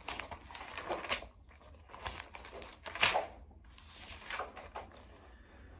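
Thin Bible pages being leafed through: several papery swishes of turning pages, the loudest about three seconds in.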